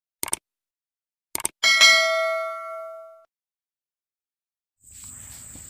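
Subscribe-button animation sound effect: two quick mouse clicks, then a notification bell that dings once and rings out for about a second and a half.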